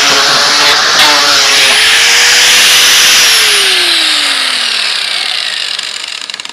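Harbor Freight Chicago Electric grinder with a sanding disc, running against oak board. About three seconds in the motor is switched off: its pitch falls and it winds down to a stop.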